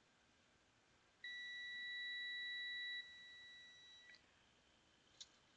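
Multimeter continuity beeper giving one steady high beep for about three seconds, fainter in its last second, as the probes are held across a resistor that reads as a near short (about 2 ohms). A small probe click ends the tone, and another click comes near the end.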